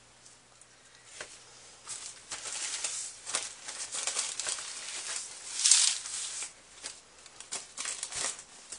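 A crumpled paper towel rustling and crinkling as it is handled and wiped over a tray and page, with small knocks and clicks from handling. It starts about two seconds in and is loudest in a brief rustle just before the six-second mark.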